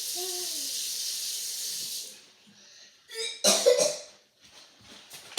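A steady hiss stops about two seconds in; a second later a person gives a short cough, the loudest sound here.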